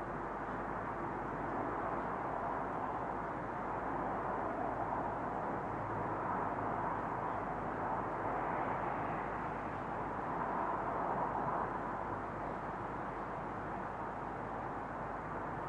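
Distant road traffic at night: a steady wash of noise that swells gently in the middle and eases off again.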